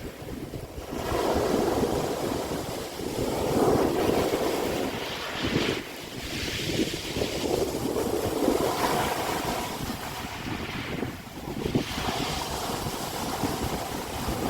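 Sea waves breaking and washing up the beach, the surf swelling and ebbing in surges every few seconds.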